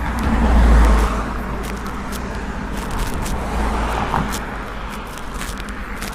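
Ocean surf breaking and washing up the beach, a steady rushing that swells about a second in and then eases.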